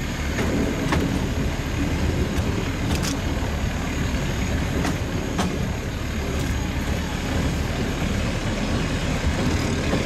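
Steady low running noise of a narrow-gauge train on the move, with scattered sharp clicks.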